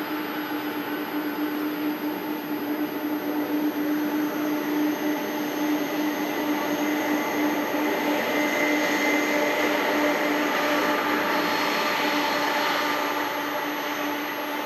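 A Boeing 747 freighter's four jet engines running at taxi power as the jet rolls past: a steady whine and hiss over a strong hum. It grows louder as the engines come by around the middle and eases off near the end.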